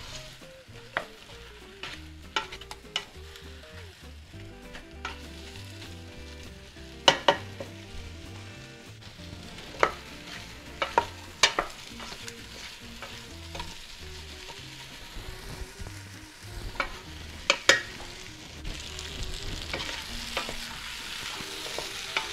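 Potato wedges frying and sizzling in a pot with spiced onion and garlic while a utensil stirs them, scraping and knocking sharply against the pot every second or two. The sizzle grows louder near the end.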